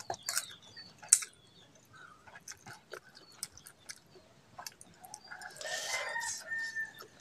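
Eating sounds: chewing and a few sharp clicks in the first second or so, then smaller scattered clicks. A rooster crows once, for about a second and a half, about five seconds in.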